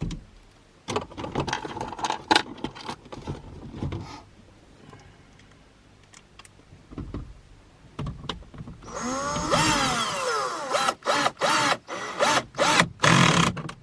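Cordless drill-driver driving the head unit's mounting screws back in: knocks and handling clatter, then the motor spinning up and down and running in several short stop-start bursts near the end.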